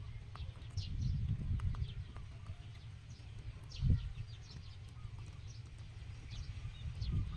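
Rabbit chewing a strip of ripe papaya: quick, irregular little munching clicks over a steady low rumble, with one thump about four seconds in.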